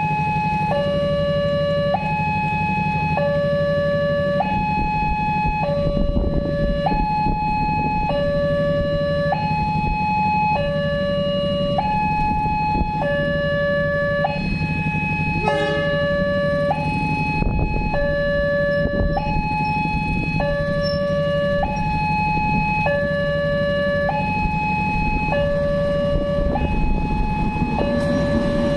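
Indonesian railway level-crossing warning alarm sounding a two-tone electronic hi-lo signal, switching between a higher and a lower tone about once a second, warning that a train is approaching the closed crossing. Near the end, the rumble of the arriving diesel-hauled train rises under it.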